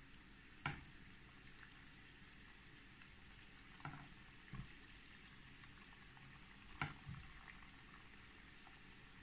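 Sweet potato dough balls deep-frying in a pan of hot oil: a faint, steady sizzle of bubbling oil, broken by a few short, sharp clicks.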